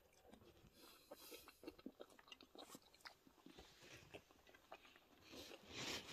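Faint chewing and small irregular mouth clicks of someone eating, with a louder rustle near the end.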